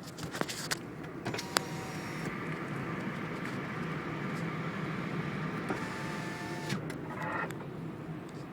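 VW Up running with a steady low drone. A few sharp clicks come in the first two seconds, and a short whine follows about six seconds in. This is the odd noise that the car's occupants call strange.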